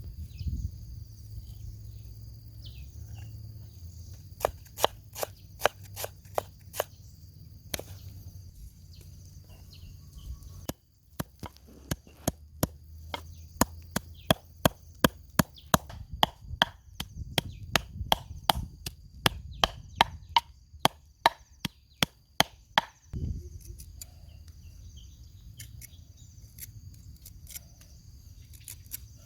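Knife chopping food on a wooden cutting board, sharp strokes at about two a second: a short run about four seconds in, then a longer run from about eleven seconds until about twenty-three seconds in.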